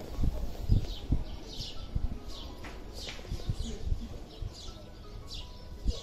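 Small birds chirping outdoors: repeated short, high, falling chirps, a few a second. Sharp low thumps on the microphone are the loudest sounds, clustered in the first couple of seconds.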